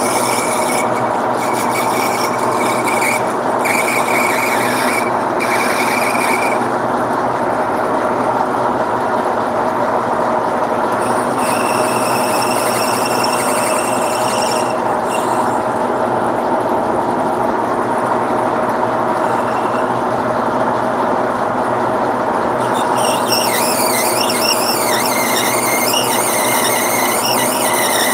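Metal lathe running, with the cutting tool squealing against the spinning workpiece as it is fed in by hand. High squealing tones come and go in the first half, and about two thirds through a louder, wavering squeal sets in over the steady running sound.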